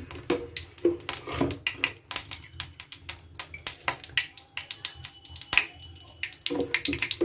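Oil heating in a kadai over a gas flame, crackling with irregular sharp pops throughout.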